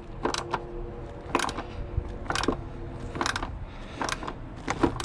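Ratchet wrench clicking in short strokes about once a second, turning out a rear seat belt anchor bolt with a Torx 50 bit.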